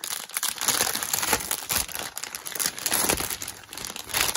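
Clear plastic packaging bag crinkling as it is handled and pulled open, an uneven run of crackles throughout.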